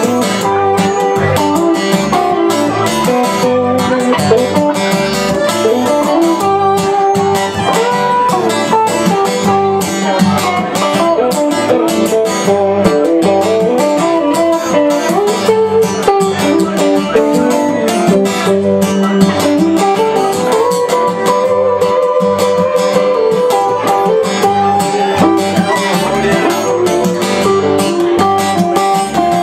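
Live acoustic string band playing a song: strummed acoustic guitars with a bowed fiddle, some of its notes held long.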